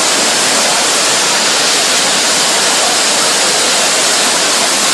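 Loud, steady rush of fast-moving flash-flood water.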